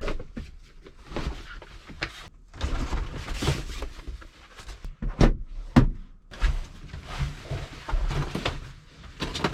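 Window covers being taken down and handled: rustling with an irregular series of knocks and sharp clicks, the loudest two about five and six seconds in.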